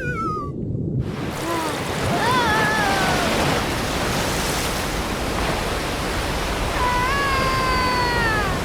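Cartoon soundtrack: a falling, warbling whistle dies away just after the start, then a steady rushing sound like ocean surf. Two gliding calls rise and fall over it, a short one early and a long held one near the end that drops in pitch.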